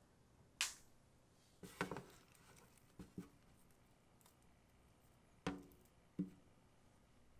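Light knocks and clicks of things being handled, about six spaced irregularly, the sharpest and brightest about half a second in.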